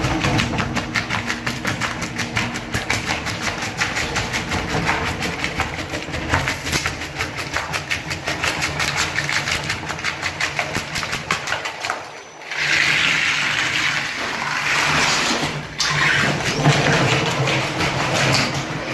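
Floor-removal machine running, its scraper blade working in a rapid, even chatter. It drops out briefly twice, and after the first break there is more hiss on top.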